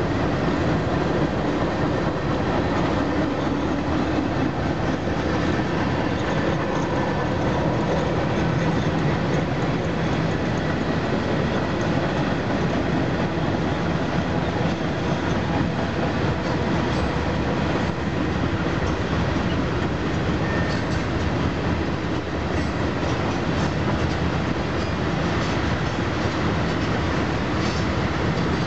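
Cars of a Norfolk Southern mixed freight train rolling past: a steady rumble of steel wheels on the rails, with faint clicks from the wheels over the track in the second half.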